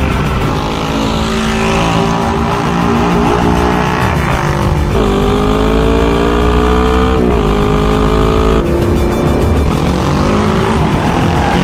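A motorcycle and a car driven hard at speed. The engine note climbs steadily and drops sharply at each gear change, about three times, over film score music.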